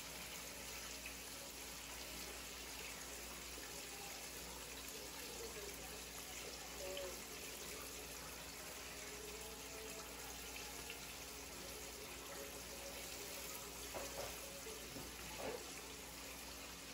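Red snapper, striped bass and French fries deep-frying in hot oil in two skillets, a steady sizzling hiss. Two light clicks near the end as the fish are handled with tongs in the cast-iron skillet.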